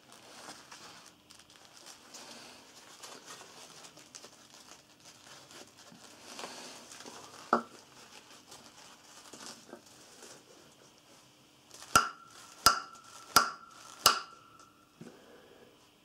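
Spyderco Manix 2 folding knife struck hard into a wooden log four times in quick succession near the end, each strike a sharp knock with a short metallic ring: an impact test of the knife's ball bearing lock. Before that comes a rustle of leather gloves handling the knife, with one single knock about halfway through.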